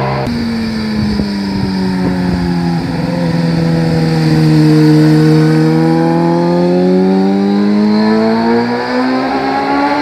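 Sport motorcycle's engine passing through a hairpin bend. Its pitch falls as it slows into the corner, bottoms out about halfway, then rises steadily as the bike accelerates out.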